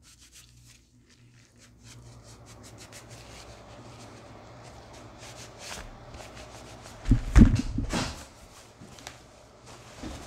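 Cloth rubbing over a Glock 22C pistol as it is wiped down after oiling, a soft, scratchy rubbing, then a few dull thumps about seven seconds in as the pistol is handled and set down on a padded mat.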